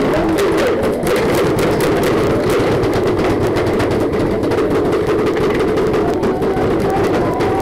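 Paintball gunfire: a rapid, irregular run of sharp clicks and pops over a steady rushing noise.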